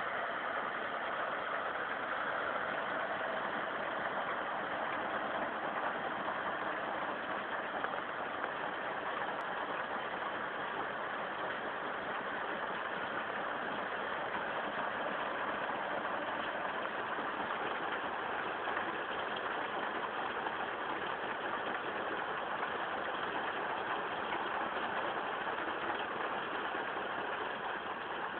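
John Deere 3040 tractor's diesel engine running steadily while driving a Krone KR155 round baler, a dense, even mechanical din with no change in pace.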